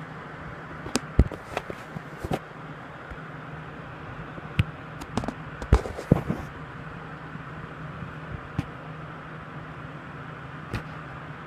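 Scattered sharp knocks and clicks, bunched in the first few seconds and again in the middle, over a steady low hum.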